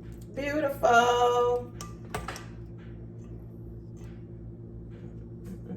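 A few light clicks and taps of kitchen items being handled, over a steady low hum; the hand mixer is switched off.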